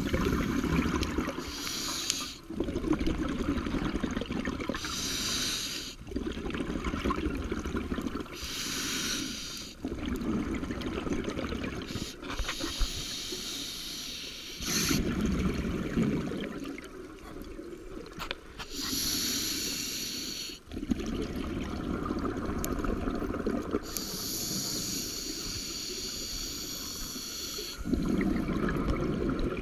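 A scuba diver breathing underwater through a regulator: a hiss on each inhale, then a longer burst of bubbling as the exhaled air leaves the regulator, repeating every few seconds.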